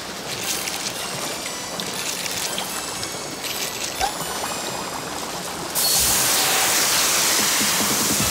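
Cartoon water sound effects: a river flowing gently, then, about six seconds in, a sudden loud rushing gush of water.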